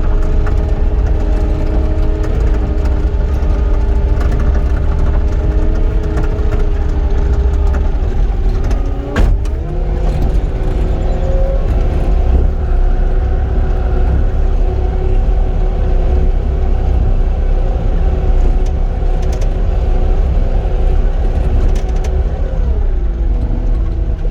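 Cat 259D compact track loader's diesel engine running steadily while grading. About nine seconds in there is a sharp knock and the engine pitch rises, and near the end the pitch drops back down.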